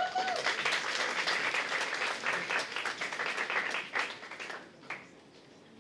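Audience applauding, thinning out and fading away about four and a half seconds in.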